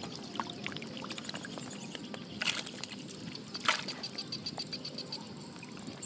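Catfish thrashing and flopping in shallow muddy water, with two sharp splashes about two and a half and three and a half seconds in.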